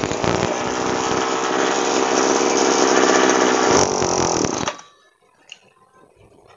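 Tasco TF-820 Pro knapsack sprayer's small two-stroke engine running fast, then cutting out suddenly after about four and a half seconds.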